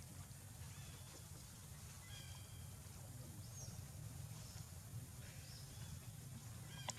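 A few faint, short, high-pitched animal calls over a low steady hum, with a brief click near the end.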